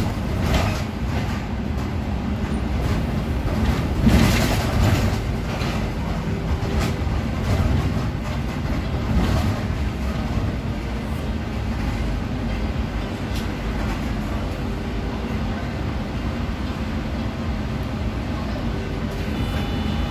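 City bus underway, heard from inside: steady engine and road rumble with knocks and rattles over bumps, the loudest about four seconds in. A brief tone sounds near the end.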